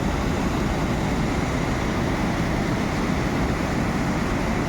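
Waterfall: water pouring down steadily, a dense even rushing noise, heaviest in the low end.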